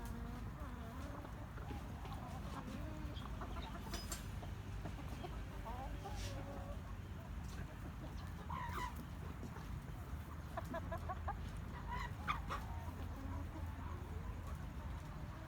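Chickens clucking, with scattered short calls and a quick run of clucks about eleven seconds in, over a steady low rumble.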